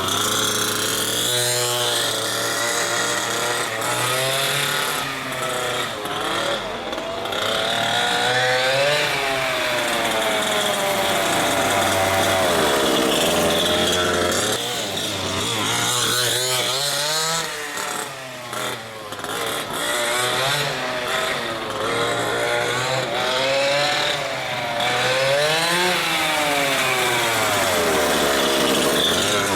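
Two-stroke gas engine of a 1/5-scale Kraken Vekta.5 RC truck with a DDM Dominator pipe, revving up and dropping back again and again as the truck is driven. The runs are held to about half throttle because the engine is still being broken in.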